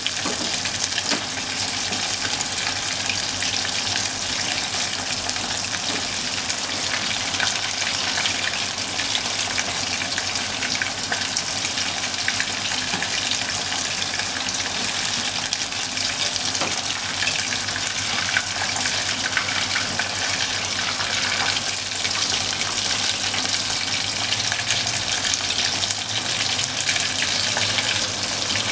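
Bone-in beef short ribs (kalbi) deep-frying in hot oil in a copper pot: a steady, dense sizzle with fine crackling.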